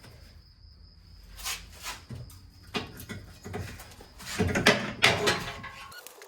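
Hands-on work dismantling a car's front end: a series of clicks, knocks and scrapes of parts and tools, getting busier and louder about four and a half to five and a half seconds in.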